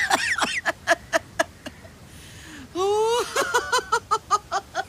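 A man laughing heartily in two bouts of quick rhythmic "ha-ha" bursts. The first dies away under two seconds in, and the second starts with a rising whoop about three seconds in.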